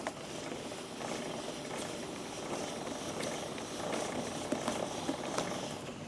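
Aerosol chain lube spraying onto a motorcycle drive chain in a steady hiss that stops near the end, with scattered light clicks from the chain and sprocket as the rear wheel is turned.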